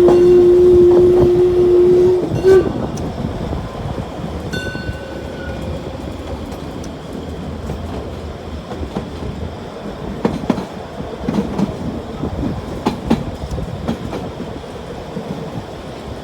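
Steam train: a long, steady whistle that cuts off about two seconds in, then the train rumbling and clattering along the rails with scattered clanks.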